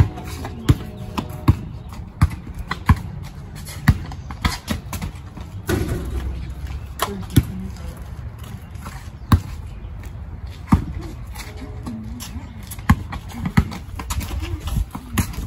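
Basketball bouncing on a concrete driveway during play: a string of sharp bounces, roughly one every 0.7 seconds for the first few seconds, then more irregular and spaced out.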